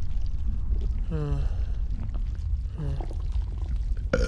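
Stomach gurgling and sloshing, used as a digestion sound effect: a steady low rumble with liquid gurgles. Two short pitched groans come through, about a second in and near three seconds, and a sudden sharper sound comes just before the end.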